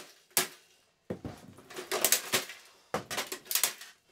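Plastic cabinet and parts of a smashed Rank Arena TV radio cassette player clicking, rattling and cracking as it is handled and pried apart by hand. Two sharp knocks in the first half-second, then three spells of quick clatter.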